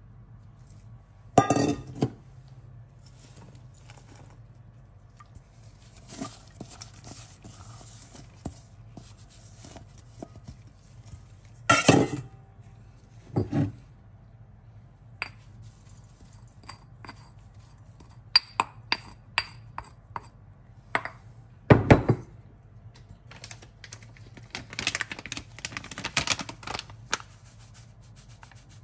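Dishes and utensils knocking and clinking against a glass mixing bowl as ingredients are tipped in: a few loud knocks, a run of quick light taps, and soft rustling of chopped vegetables and spices falling into the bowl.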